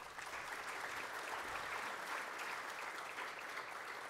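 Audience applauding, the clapping starting abruptly and holding steady.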